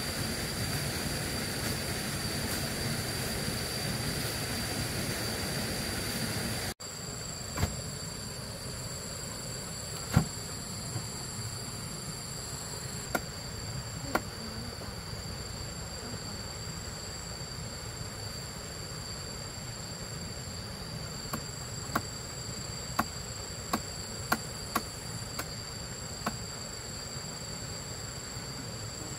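Insects droning steadily in two high, even tones, with a dozen or so scattered sharp knocks in the second part.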